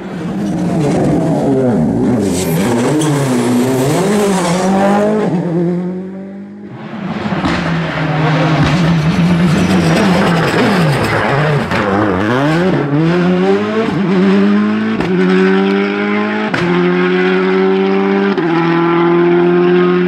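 Rally cars on a closed special stage, engines revving hard up and down through the corners with quick gear changes and some tyre squeal; one is a Citroën Xsara WRC with its turbocharged four-cylinder. The sound dips briefly about a third of the way in, then the engine note climbs and is held high in the last third, broken by several sharp gear-change steps.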